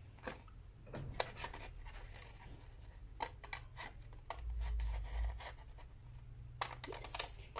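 Scissors snipping through stiff hard paper: irregular short snips and crunches with the sheet rustling as it is turned. A brief low rumble comes about halfway through.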